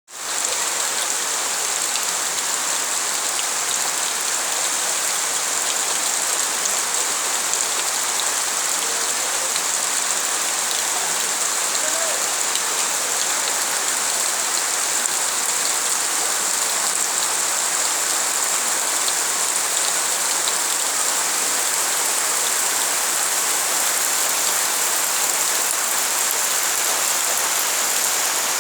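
Steady heavy rain falling on surfaces: an even hiss with scattered drop ticks, fading in at the start.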